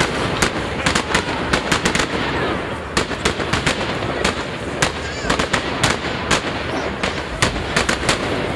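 Fireworks display: many sharp cracks and bangs in rapid, irregular clusters over a steady crackling din.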